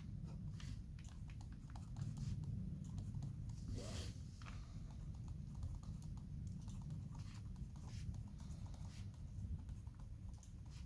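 Ballpoint pen writing on squared notebook paper: faint, irregular scratches and small taps of the pen strokes over a low steady hum.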